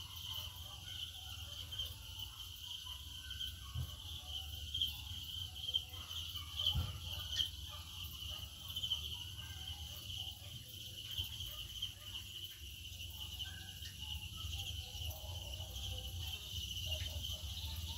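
Steady high-pitched chirring of insects in the background over a low rumble, with two soft knocks about four and seven seconds in.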